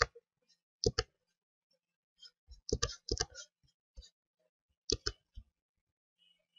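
Computer mouse buttons clicking: about seven separate moments, several of them quick pairs of clicks, with a short flurry of clicks near the middle.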